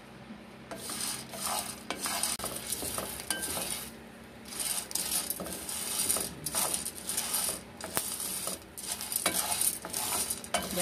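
Coffee beans being dry-roasted in a skillet and stirred with a wooden spoon, the beans scraping and shifting against the pan in repeated strokes. The stirring starts about a second in and pauses briefly around four seconds in. The beans are mid-roast on a low flame.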